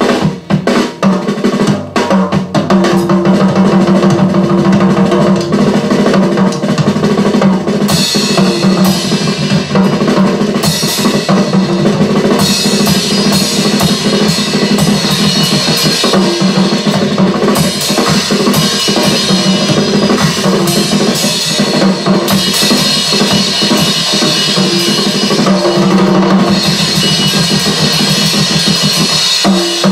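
Drum kit recording played back through loudspeakers from an audio check record: a busy, continuous pattern of bass drum, snare and cymbal hits.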